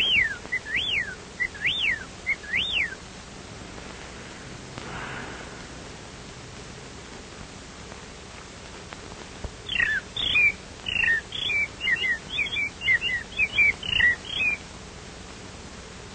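Bird calls: four clear whistled notes, each rising then falling, then after a pause a quick run of twittering chirps.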